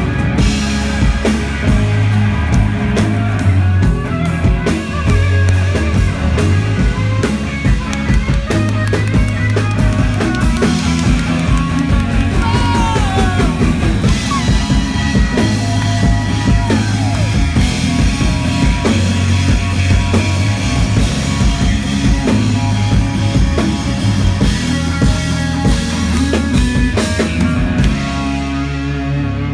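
Live blues-rock band playing an instrumental section: electric guitar lead lines with bent notes over bass and a drum kit. Near the end the drums drop out, leaving a sustained chord.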